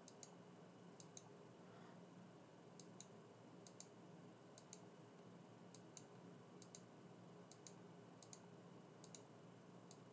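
Faint computer mouse clicks, each a quick press-and-release pair, about one pair a second, over a low steady room hum.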